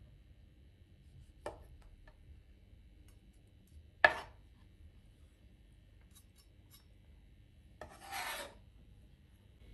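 Kitchen knife cutting tomatoes on a plastic chopping board: a light tap of the blade on the board a little over a second in, a sharper knock about four seconds in, and near the end a short scrape as the blade slides across the board through the pieces.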